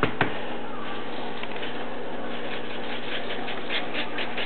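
Poppy seeds being sprinkled over a braided challah loaf on a baking sheet: a quick, uneven patter of tiny ticks that grows denser from about two seconds in, over a steady hiss. Two sharp clicks right at the start.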